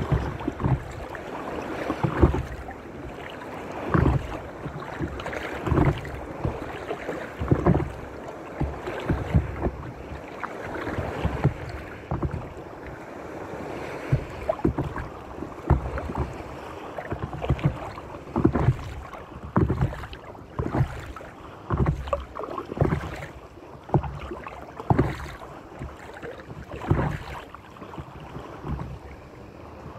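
Paddle strokes from a stand-up paddleboard, a splash and pull through the water about every two seconds, over the wash of small waves, with some wind on the microphone.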